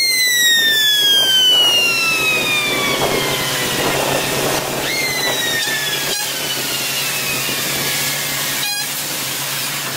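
Fire engine's mechanical siren, wound up briefly and then coasting down in a long falling wail. It is wound up a second time about halfway through and coasts down again, fainter, over a steady low engine hum.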